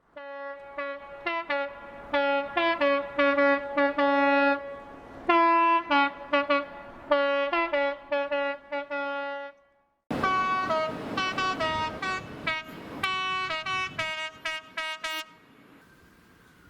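Train horns sounded in rapid runs of short blasts at several pitches, like a tune. There are two sequences: the first stops at about nine and a half seconds, and after a short gap a second starts over train noise and ends at about fifteen seconds.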